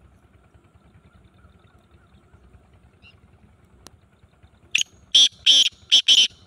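Black francolin calling from its cage: a quick run of about five loud, harsh, high-pitched notes near the end, over faint low background noise.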